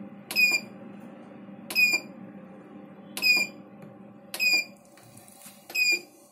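Five short electronic keypad beeps from the control panel of a Biotronix solid-state shortwave diathermy machine, each starting with a light click as a button is pressed, about one every second and a half. A low steady hum runs underneath.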